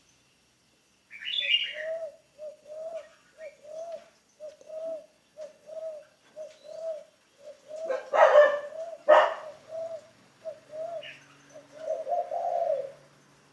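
Spotted dove cooing: a steady run of short, low coo notes about twice a second, with two louder, harsher calls about eight and nine seconds in. A brief high chirp from another small bird sounds near the start.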